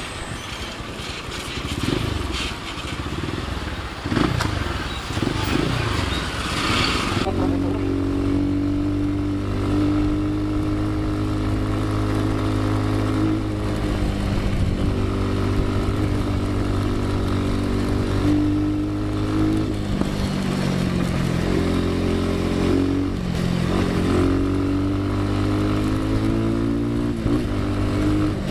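Trail motorcycle engine running while riding, its pitch rising and falling with the throttle. A rushing noise covers it for the first several seconds, and from about seven seconds in the engine note is clearer and steadier.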